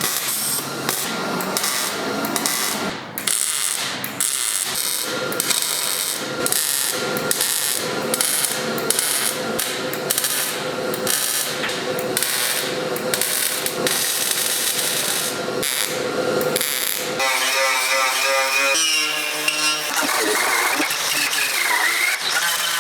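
Repeated rubbing or filing strokes, about two a second; near the end a steady pitched whir takes over.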